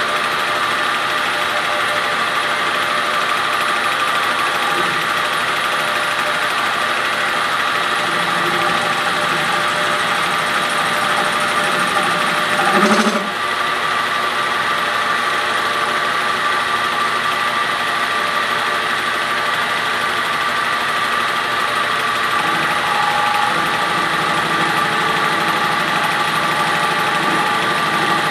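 1954 Monarch 10EE metal lathe running steadily, turning a bar with a carbide-insert tool, with a steady high whine throughout. One brief louder knock comes about halfway through.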